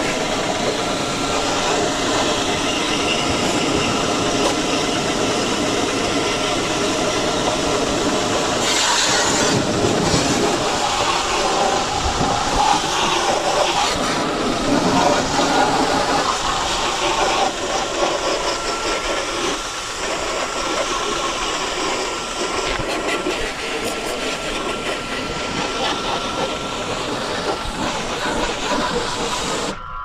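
Pressure washer running, its spray gun blasting water into the dirty evaporator coil and fins of a window air conditioner: a steady, loud hiss of spray.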